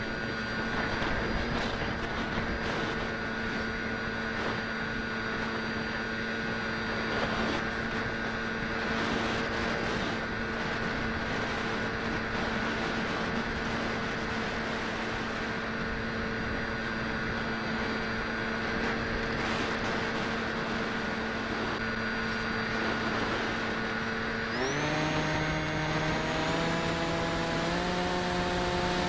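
Skywalker 1900 RC plane's electric motor and propeller whining steadily over a rush of wind noise. About three-quarters of the way through, the throttle is opened and the whine jumps up in pitch, then steps higher again.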